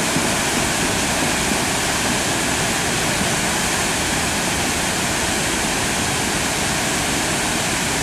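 Waterfalls pouring into a river pool: a steady, even rush of falling water.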